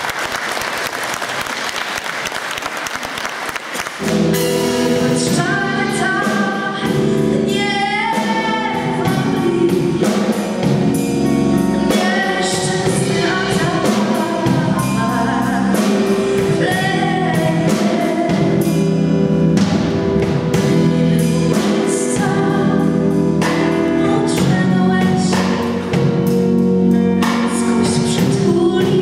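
Audience applauding, then about four seconds in a band starts a Christmas carol, with a woman singing lead over drum kit and bass guitar.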